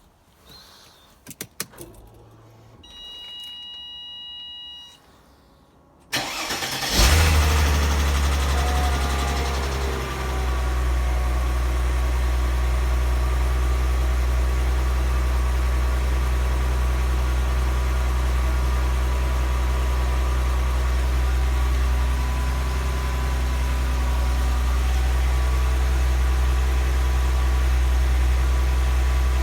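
Mercedes M112 V6 engine cold-started: a few clicks and a steady tone for about two seconds, then the engine catches about six to seven seconds in, runs loudest and unsettled for the first few seconds, and settles to a steady idle about ten seconds in. The owner calls the first seconds a bad sound and suspects it may be low oil pressure.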